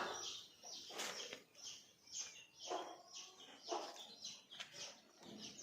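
Desi chickens calling faintly: a string of short chirps and clucks, about two a second.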